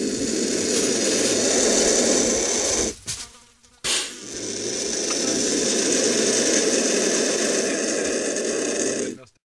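Vulture chick hissing in two long, noisy stretches: the first stops about three seconds in, and after a short gap the second starts suddenly and runs until it cuts off near the end.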